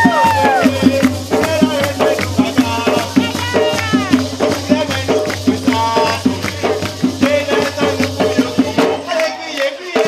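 Live Gwoka music: ka hand drums beating a fast, dense rhythm with a shaker rattling along and voices singing, with long falling calls near the start and about four seconds in.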